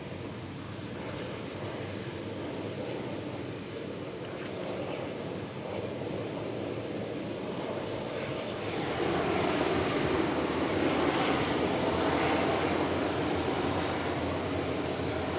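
Boeing 737-400 freighter's CFM56 jet engines running at low thrust as it taxis. The engine noise grows louder about nine seconds in.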